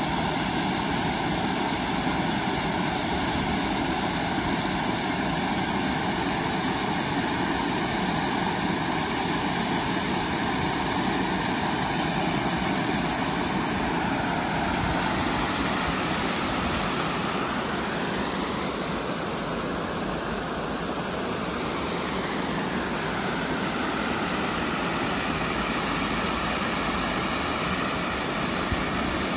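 Water pouring over a small curved weir into a stream: a steady rush of falling water whose tone shifts a little midway.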